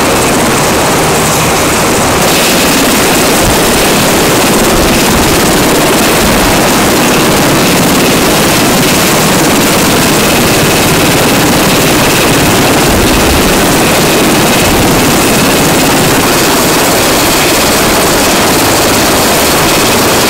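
UH-60 Black Hawk helicopter running on the ground: a loud, steady rush of turbine and rotor noise.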